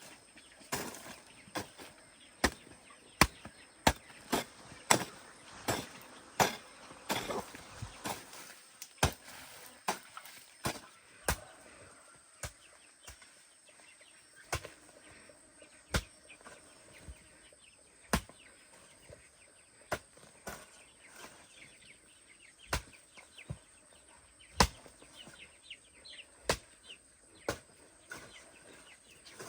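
A series of sharp knocks, about one or two a second for the first eight seconds, then sparser and more irregular, over a faint steady high-pitched tone.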